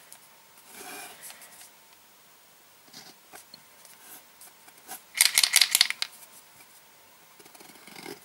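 Faint strokes of a paint marker scratching across the rubber inner liner of a motorcycle tyre. A little past the middle comes a quick, loud rattle lasting about a second, which fits the paint pen being shaken to stir its paint.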